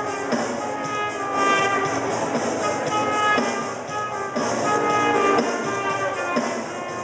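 Brass band music: trumpets and trombones playing a melody of sustained notes.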